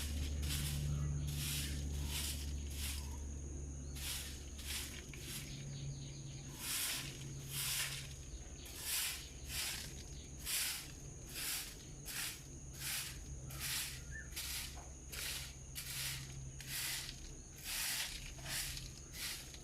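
An insect calling in an even pulsing rhythm, about one and a half pulses a second, over a steady high-pitched whine. A low hum fades out over the first few seconds.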